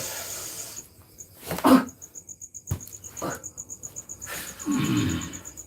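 A medium going into trance breathes out hard and makes short throaty grunts, the loudest a little under two seconds in. Behind him a cricket chirps in a fast, steady pulse.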